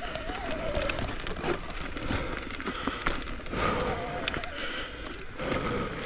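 Full-suspension mountain bike rolling over a rocky dirt trail: tyres crunching on gravel and roots, with frequent clicks and knocks from the bike rattling. A wavering whine rises and fades twice.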